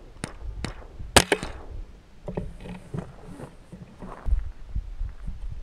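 A series of sharp clicks and knocks, the loudest a single crack about a second in, with lighter knocks and taps following through the rest.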